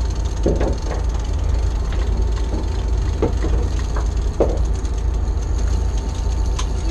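A party boat's engine running steadily, a low rumble with a faint steady whine over it. A few brief knocks come through about half a second in, around three seconds and again near four and a half seconds.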